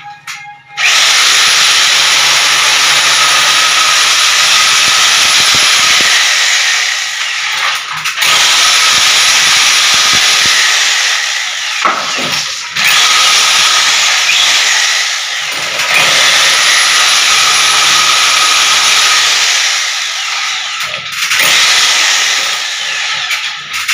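Electric power drill running in about four long runs of several seconds each, with short stops between. Its motor whine rises as each run starts and falls away as it stops.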